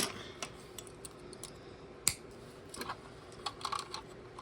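Plastic building bricks clicking as train wheel assemblies are handled and pressed into their holder pieces. There is a sharp click at the start and another about two seconds in, then a run of lighter clicks near the end.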